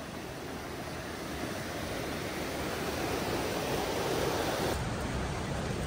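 Steady rushing of a mountain river, growing gradually louder for about four seconds, then dropping suddenly a little before the end.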